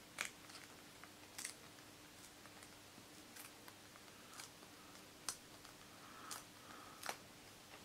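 Paper CD inlay strip being torn slowly by hand along its perforation line: a faint run of about seven small sharp ticks, roughly one a second, as the perforation gives way bit by bit.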